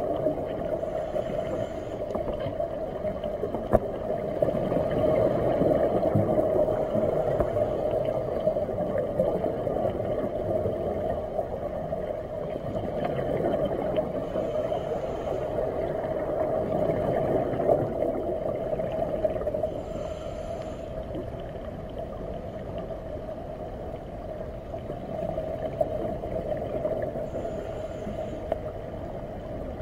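Underwater sound picked up by a diver's camera in its housing: a steady rumbling water noise, with a hissing scuba regulator breath recurring about every six to seven seconds.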